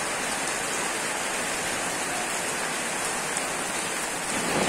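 Steady rain falling on a wet paved street, an even hiss at an unchanging level.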